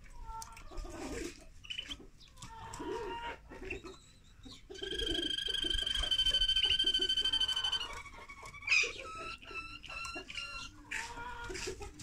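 Caged finches singing: chirps and short warbled notes, then about five seconds in one long, steady trilled note held for about three seconds, followed by more chirps.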